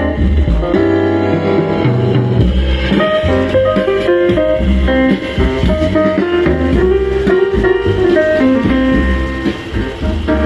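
Music with a heavy bass line playing loudly through a scooter's under-seat sound system: a coaxial speaker and a Category 7 subwoofer.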